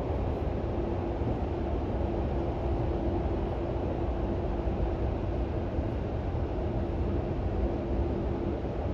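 Beijing Daxing Airport Express train running, heard from inside the carriage: a steady rumble with a constant hum that starts about half a second in and fades out near the end.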